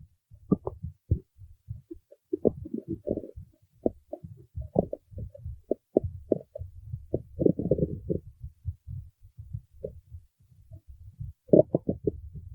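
Stomach growling: irregular gurgles and short squelching pops, coming in clusters with brief gaps, loudest around two to three seconds in, around eight seconds in and again near the end.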